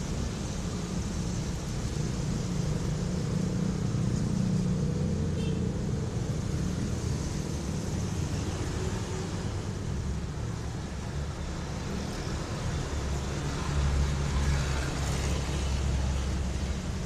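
Vehicle engine and road noise: a steady low rumble whose pitch shifts now and then.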